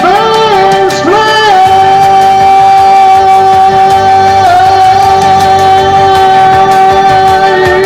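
Music: a melody plays a few short notes, then holds one long steady note for about six seconds over a light beat.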